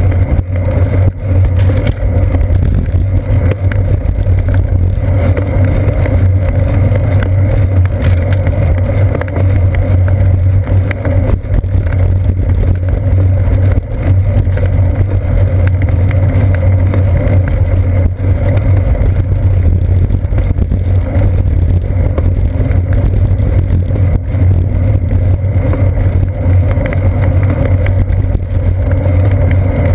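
Steady wind rush and road rumble of a bicycle rolling along a paved road, picked up by a seat-post-mounted GoPro Hero 2, with a constant low hum underneath.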